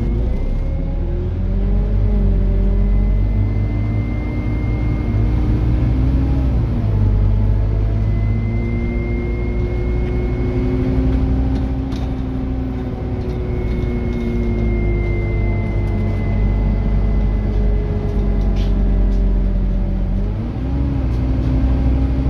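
Scania N230UD OmniDekka double-decker bus heard from the upper deck while driving: a deep engine rumble whose pitch rises and falls several times as the bus accelerates and eases off, with a thin high whine that comes and goes.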